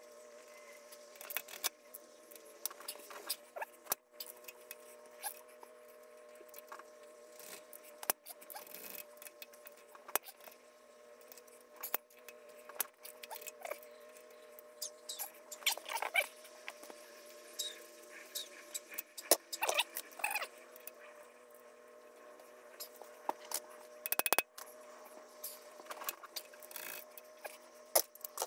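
Socket ratchet clicking and metal tools clinking while the cylinder head bolts are undone, in scattered clicks and short quick runs of clicks.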